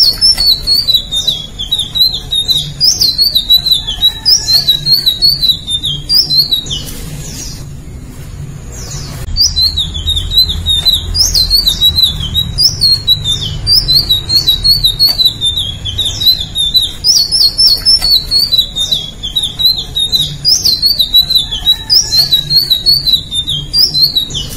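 Indigo flycatcher singing: fast, high, jerky warbling phrases repeated one after another, with a pause of about two seconds roughly a third of the way in.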